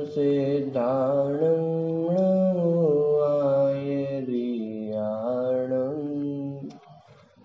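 A man chanting a devotional mantra in long, held, melodic notes that glide slowly between pitches, pausing briefly near the end.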